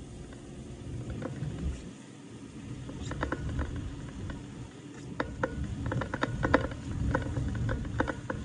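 Car tyres rolling over a rutted, icy slush-covered road: a steady low road rumble, with irregular crackling clicks of crunching ice that start about three seconds in and grow denser.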